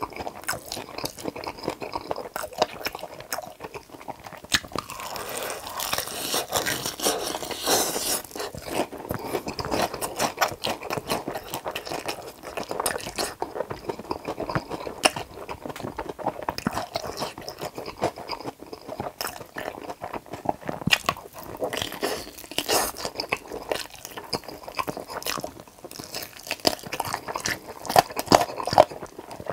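Close-miked crunching and chewing of a crispy fried chicken drumstick, with wet mouth sounds between bites and a few louder crunches near the end.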